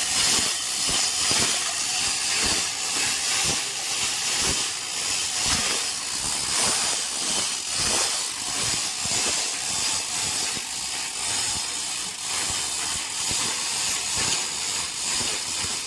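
Steady hissing machinery noise of a ship's engine room, with irregular short knocks and clatter running through it.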